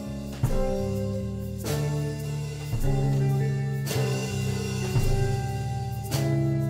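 Psychedelic rock music: guitar chords, each struck and left to ring, changing about once a second.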